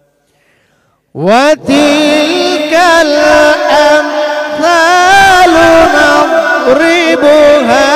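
About a second of near silence, then a solo voice starts a slow, drawn-out chanted recitation in Arabic style, sliding up into its first note and holding long notes with wavering ornaments.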